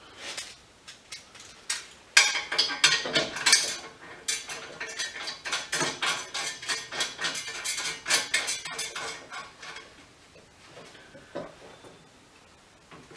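Steel parts of a hydraulic strut spring compressor clinking and clanking against each other and the steel workbench as it is put together. A dense run of sharp metallic clanks with a ringing edge starts about two seconds in and thins out to a few scattered knocks after about nine seconds.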